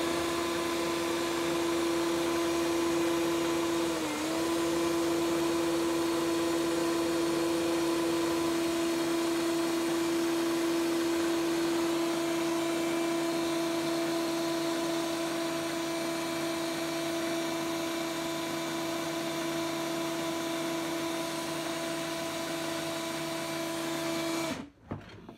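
DeWalt drill running steadily in reverse with a constant whine, spinning a zip tie in an Arctic Cat snowmobile speedometer's cable socket to wind the odometer back. It dips briefly about four seconds in and stops abruptly just before the end.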